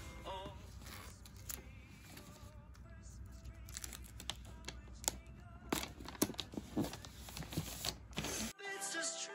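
Gift-wrapping paper crinkling and clear tape being handled and stuck down, in many sharp crackles and clicks, over background music with singing. The paper sounds stop near the end, leaving only the music.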